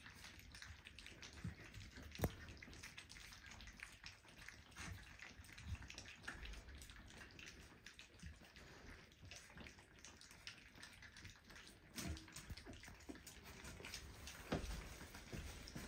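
Puppies lapping and smacking at wet, pureed mash: faint, irregular wet clicks and smacks.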